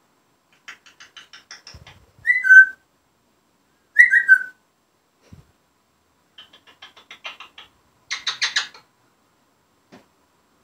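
African grey parrot calling: bursts of rapid clicking chatter, two loud falling whistles about two and four seconds in, and a louder burst of clicks near the end.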